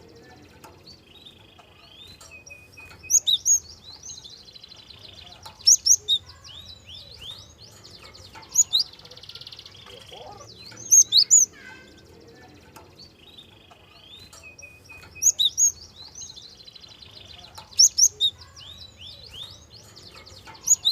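Gelatik song played as a lure recording: a phrase of three or four sharp, high notes repeats about every two and a half seconds, with a softer buzzy twitter between the phrases.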